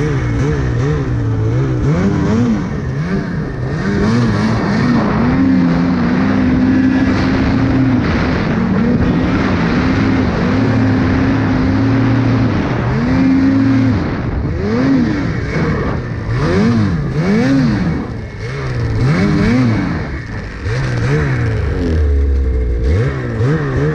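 Ski-Doo Summit 850 two-stroke snowmobile engine revving in deep powder: it climbs and holds high for several seconds, then goes through a series of throttle blips that rise and fall, dropping low shortly before the end.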